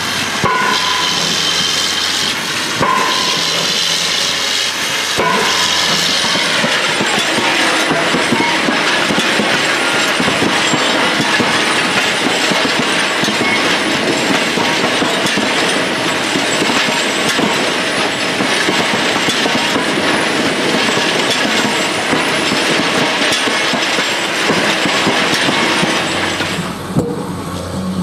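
A truck-mounted drop-hammer pavement breaker strikes concrete pavement three times, about two and a half seconds apart, over its diesel engine running. About six seconds in, this gives way to a multi-head pavement breaker's many hammers in a dense, continuous clatter, rubblizing the concrete slab.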